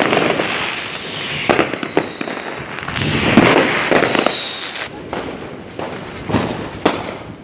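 Fireworks going off: repeated sharp bangs and crackling pops, with a high whistle that falls slightly in pitch from about a second in to about four seconds in.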